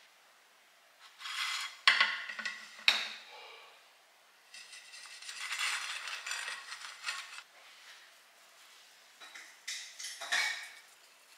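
Kitchen utensils clinking and scraping against dishes. Two sharp clinks come about two and three seconds in, then a few seconds of scraping, then more clatter near the end.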